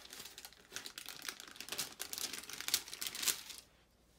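Paper sticker sheet rustling and crinkling as it is handled, a dense run of small crackles and ticks that stops near the end.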